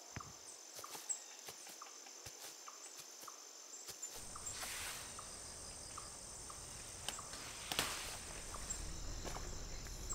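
Insects trilling steadily and faintly, with scattered light clicks and knocks. A low rumble comes in about four seconds in, and one sharper knock comes near the end.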